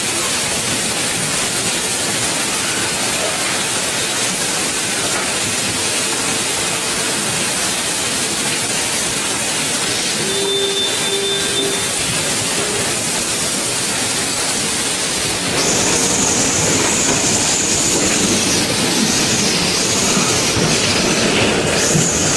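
Dense, steady noise of automated stator production-line machinery running. A short tone sounds about halfway, and from about two-thirds in a high whine joins and the noise grows louder.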